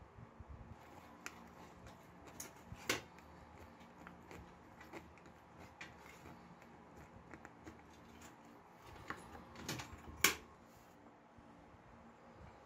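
Small metal clicks and taps from a screwdriver and needle-nose pliers handling small metal lamp fittings, with two louder clicks about 3 seconds in and about 10 seconds in, over a faint steady low hum.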